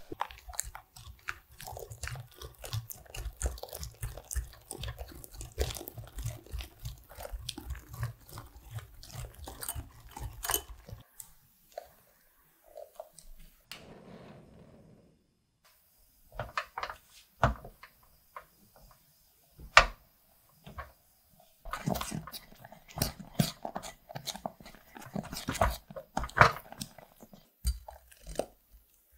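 Kitchen utensil strokes against a pan and bowl as lemon curd is made: a fast, even run of clicks and light thumps for about the first ten seconds, a quieter stretch, then irregular clicks and scrapes.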